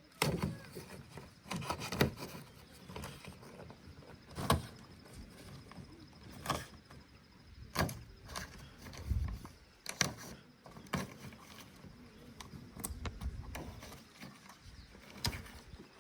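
A series of sharp knocks at uneven intervals, roughly one every one to two seconds.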